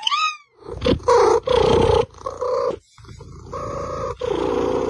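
Animal vocal calls: a gliding call at the start, then four rough, drawn-out bursts, the first starting just under a second in.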